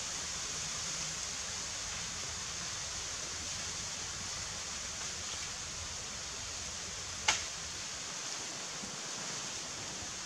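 Steady hiss of wind blowing through the trees, with a single sharp click about seven seconds in.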